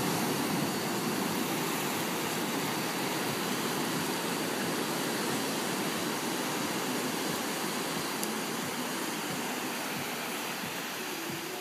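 Ocean surf breaking and washing up the beach, a steady rushing that is loudest at the start and eases slowly.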